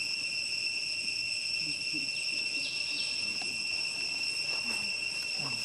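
A steady, high-pitched drone of insects, unbroken in pitch and level, with a few faint short falling chirps about halfway through.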